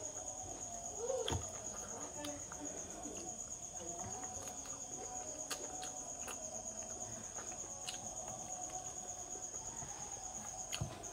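Insects trilling steadily in the background, a constant high-pitched pulsing tone, with soft scattered clicks of fingers mixing food on a steel plate.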